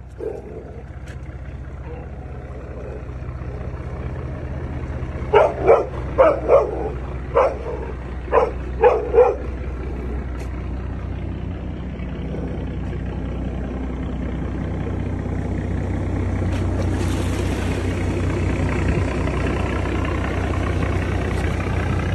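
A boat's engine drones steadily and grows louder as the vessel comes close. A dog barks about eight times in quick succession near the middle. A rush of churned water joins in about two-thirds of the way through.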